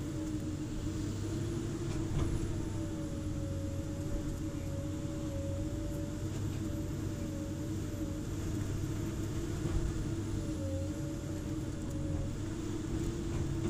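Komatsu hydraulic excavator running under load while digging: a steady diesel drone with a whine that wavers slightly in pitch as the hydraulics work the arm and bucket. A couple of faint knocks are heard, about two seconds in and near the end.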